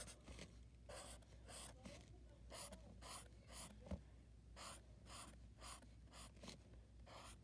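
Felt-tip Sharpie fine-point marker rubbing on paper in short back-and-forth colouring strokes, about two a second, faint.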